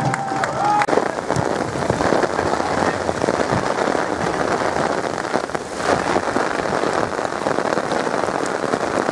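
Steady rain falling, an even hiss of many small drop hits that runs on without a break.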